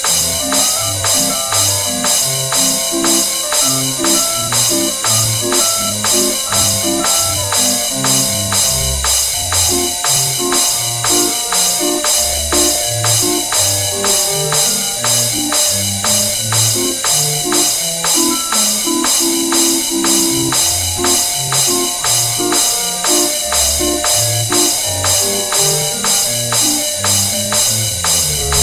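Upbeat music with a bass line and a melody over a steady beat of bright clashes, about three a second.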